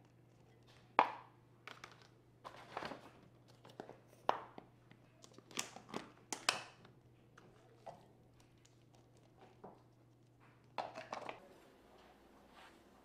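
A spoon scooping and scraping food out of a paper cup into a small pot, a string of short sharp clicks and scrapes at irregular intervals, the loudest about a second in and around five to six and a half seconds in.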